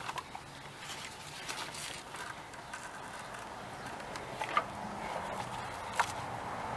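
Scattered light clicks and knocks of a serpentine belt being worked by hand around an engine's pulleys, with two sharper knocks about four and a half and six seconds in.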